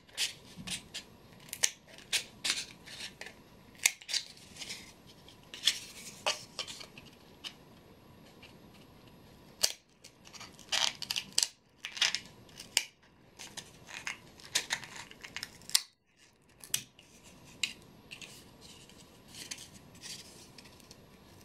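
Scissors snipping through a molded egg-carton cup, which the crafter believes is grass fibre rather than plastic: many short, irregular snips with a few brief pauses.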